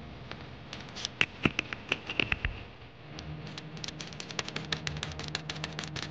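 Small metal parts being handled and fitted: a brass battery terminal adapter and its bolt tap and click against each other and against the battery terminal. A few sharper taps that ring briefly come first, then a quick run of light clicks as the adapter is screwed onto the terminal.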